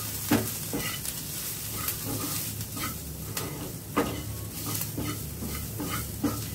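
A spatula stirring and scraping an onion-and-spice masala around a nonstick frying pan, in irregular scrapes about two a second, over a light sizzle of the spices frying in oil.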